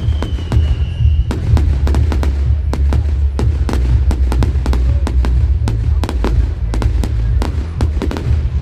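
Fireworks going off: a rapid, continuous run of bangs and crackles over a steady low rumble, with a high whistle gliding down and stopping about a second in.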